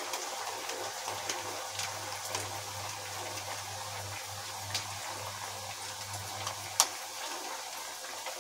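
Sabudana tikkis deep-frying in hot oil in a kadhai: a steady sizzle with scattered small crackles and pops. A steady low hum runs underneath.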